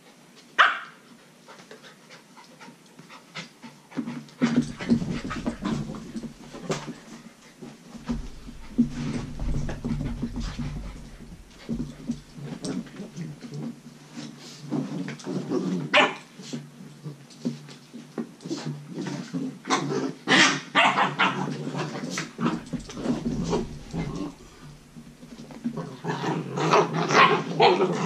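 Two Belgian Malinois puppies play-fighting, with puppy growls and short sharp barks now and then, loudest in a flurry near the end.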